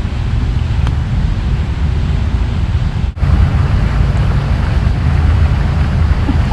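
Wind buffeting the camera microphone: a loud, steady low rumble that drops out briefly about three seconds in.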